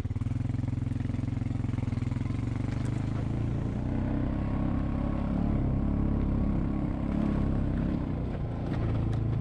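ATV engine running as the quad is ridden along a dirt trail. It gets a little louder about halfway through.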